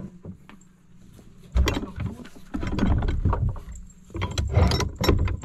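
A door being closed up: repeated loud scraping, bumping and knocking in several bouts, starting about a second and a half in.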